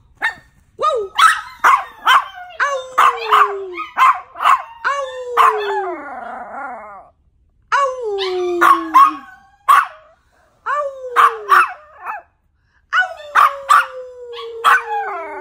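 Yorkshire terrier howling: a run of short high yaps breaking into long howls that slide down in pitch, about five howls in three bouts with short pauses between.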